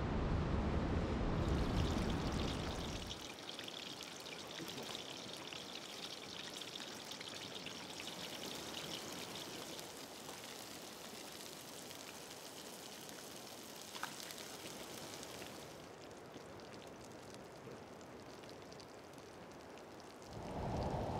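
A low rumble for the first three seconds, then pieces of salmon sizzling and crackling in a frying pan on a two-burner propane camp stove. The sizzle eases a little after about fifteen seconds.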